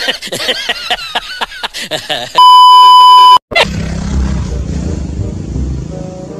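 A loud, steady 1 kHz censor beep lasting about a second, coming after a quick run of rising and falling vocal sounds. It cuts off sharply and gives way to a steady low rumble.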